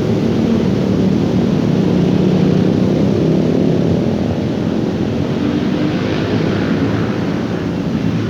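A loud, steady, low engine drone, with a faint hum in it.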